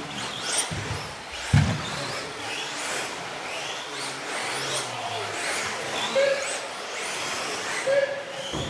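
Radio-controlled 2wd off-road buggies racing, their motors whining up and down in pitch as they speed up and slow down, with a few sharp knocks near the start, the loudest about one and a half seconds in.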